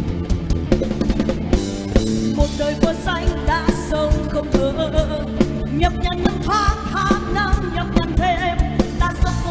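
Live band music played loud through a concert PA: a steady drum-kit beat with bass, and from about two and a half seconds in a wavering lead melody over it.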